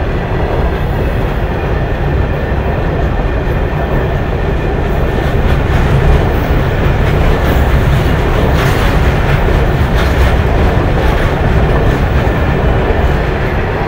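Goods train of Indian Railways open box wagons rolling past close by: a steady, loud rumble of steel wheels on rail with clickety-clack over the rail joints, and a few sharper clanks about nine to ten seconds in.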